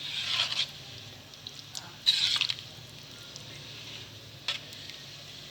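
Liquid splashing in two short bursts, with a few small clicks of kitchenware in between.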